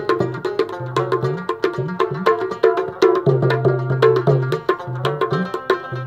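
Baluchi rabab playing a fast plucked melody, with a dholak drum beating along.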